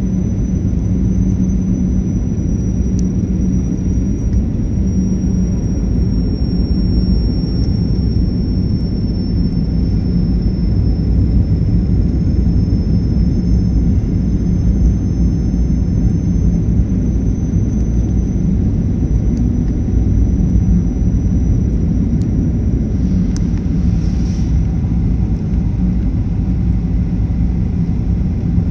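Steady cabin noise of a Boeing airliner on approach, heard from a window seat over the wing: jet engines and airflow make a deep rumble with a constant hum. A thin high whine slowly drops in pitch, and a short hiss comes about 24 seconds in.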